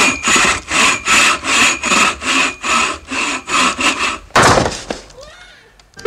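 Rhythmic rasping strokes, about three a second, like a hand saw working through wood. They stop about four seconds in, and a single loud noisy burst follows and fades away.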